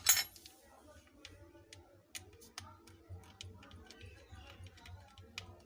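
Scattered light clicks and ticks of small repair tools and plastic and metal parts being handled on an opened smartphone, with a sharper clink right at the start.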